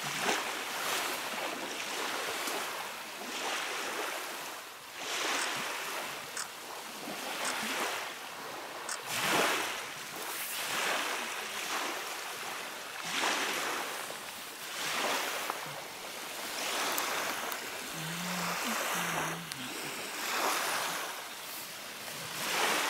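Small lake waves washing onto a pebble shore in repeated surges every second or two, with wind on the microphone.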